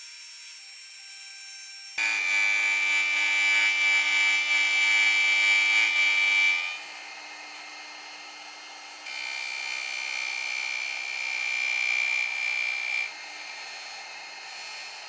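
CNC router spindle running with a steady high whine while its bit cuts carob wood. The sound is much louder while the bit is in the cut, from about two seconds in until nearly seven, and again from about nine seconds until thirteen, with the spindle whining more quietly between.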